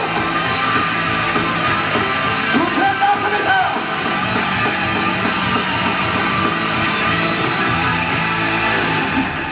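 Rock music with electric guitar and band playing out the end of a stage musical's encore song, with a brief sung line about two and a half seconds in.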